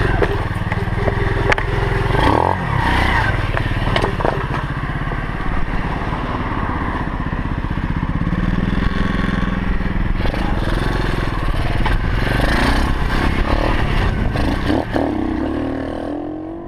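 A 125cc four-stroke pit bike engine running, its pitch rising and falling with the throttle. Knocks and rattles from the bike come through now and then, and the sound fades out at the end.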